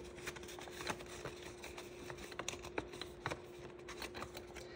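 Faint, scattered light clicks and ticks of paper banknotes and cash envelopes being handled, with a faint steady hum underneath.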